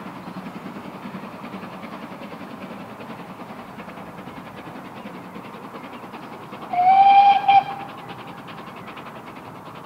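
GWR steam locomotive whistle blown about seven seconds in: one blast of about a second that rises slightly as it opens, breaks off and sounds once more very briefly. It is heard over a steady distant rumble of the train.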